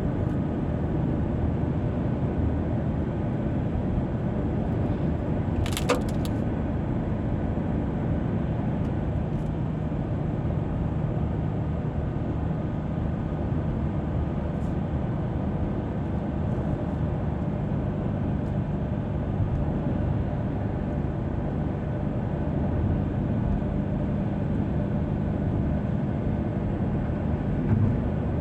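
Car driving on a highway: steady road and engine noise, with a short sharp click about six seconds in.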